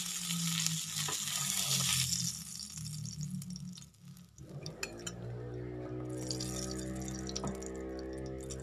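Hot oil sizzling in a Teflon frying pan as a fried fish is lifted out: a strong sizzle for about the first two seconds, then scattered spits and crackles from the oil left in the pan. A steady hum with several tones comes in about halfway through.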